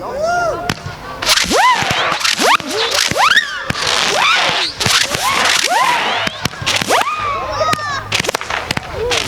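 Fireworks going off in a rapid barrage: many overlapping whistles, each rising sharply in pitch and then falling away, mixed with sharp cracks.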